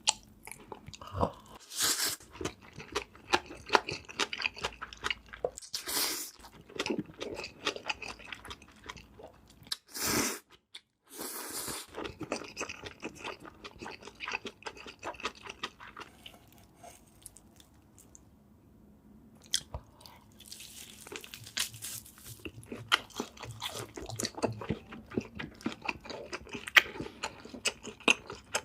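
Close-miked eating: crunchy bites and chewing in irregular runs, with a few louder crunches in the first half and a brief lull a little past the middle.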